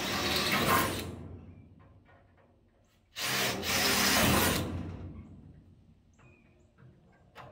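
Cordless drill boring quarter-inch holes through the sheet-metal inner wheel tub panel, opening up the pilot holes. There are two drilling runs: one at the start and a second about three seconds in. Each dies away over a second or two.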